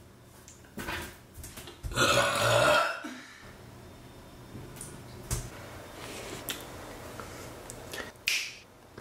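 A person burps once, loudly, about two seconds in. A few short, sharp clicks come before and after it.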